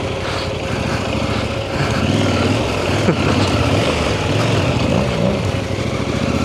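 KTM 890 Adventure R's parallel-twin engine running at low revs as the motorcycle crawls along a rough forest track, the revs wavering and picking up a little about two seconds in.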